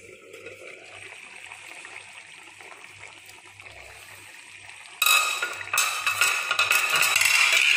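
Chicken curry bubbling and spluttering in its gravy in an aluminium kadai on a gas stove as it is cooked down. Faint at first, it turns suddenly loud and crackly about five seconds in.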